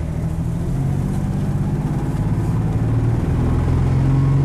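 Ford Ranger 4.0-litre V6 running rough while the truck is driven, with a steady engine drone heard from the cab that rises a little in pitch and level near the end. The roughness comes from a misfire: the engine really misses and runs like a bag of balls.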